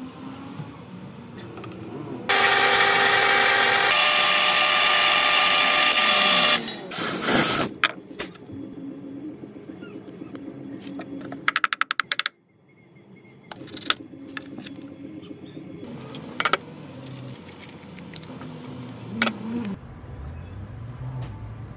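A power tool's electric motor whirs steadily for about four seconds, its pitch shifting partway through. It is followed by short knocks, a quick run of rapid clicks and light handling clatter of tool parts.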